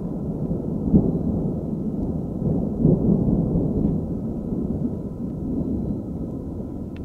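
Distant thunder rumbling in a long, deep roll, swelling about a second in and again around three seconds, then slowly easing off.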